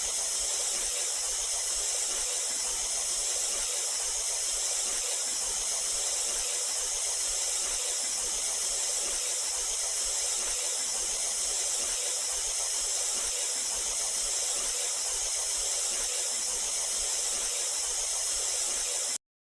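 Anime sound effect of steam hissing off a body: a steady, bright, high hiss without breaks that cuts off suddenly near the end.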